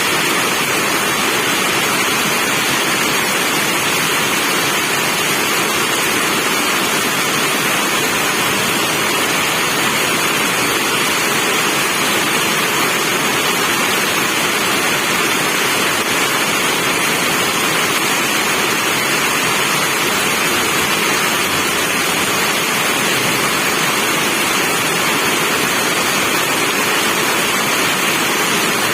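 Steady rain, an even hiss that neither rises nor falls.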